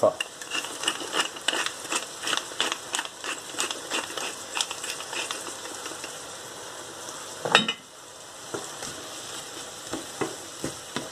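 Metal pepper mill grinding over a frying pan: a run of quick even clicks, about three a second, for the first five seconds or so, over the steady sizzle of chicory frying. A single knock comes about seven and a half seconds in, followed by a wooden spatula stirring in the pan.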